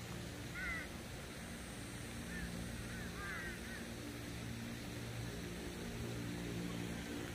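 A few short bird calls, in small clusters about a second in and again a couple of seconds later, over a steady low hum.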